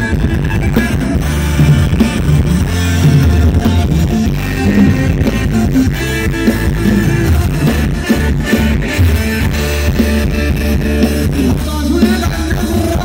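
Amplified live band playing Thai ramwong dance music: electric guitars and bass over drums, with a steady beat.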